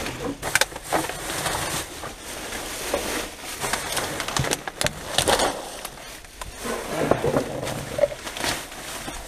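Black plastic garbage bags rustling and crinkling as they are handled and shifted, in irregular spells of crackly rustling.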